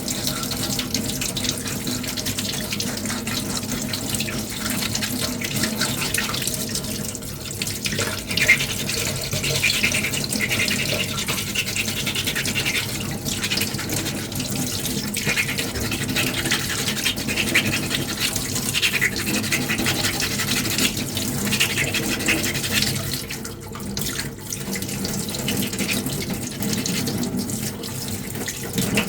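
Sandpaper scrubbing back and forth over a filler-primed 3D-printed armour piece in quick repeated strokes, with a short pause about three quarters of the way through.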